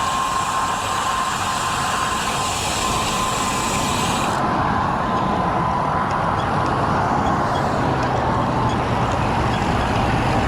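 Steady wind and road noise on a bicycle-mounted action camera, with the low rumble of a freight train coming in from about halfway through.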